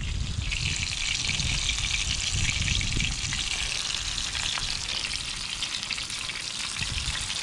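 Pieces of perch frying in hot oil in a skillet on a portable butane stove: a steady sizzle.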